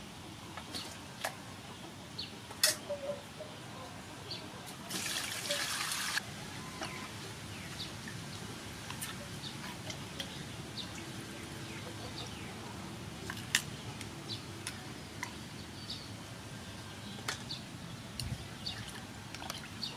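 Water sloshing and dripping in a metal basin as whole squid are washed and rubbed by hand, with scattered small splashes. About five seconds in there is a louder rush of water lasting just over a second.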